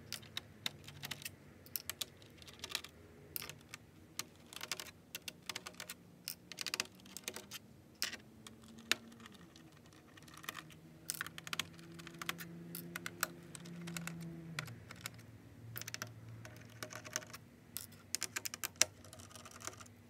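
Irregular small clicks and taps as screws are taken out of a Dell Inspiron 3558 laptop's plastic bottom case with a screwdriver and handled into small plastic cups.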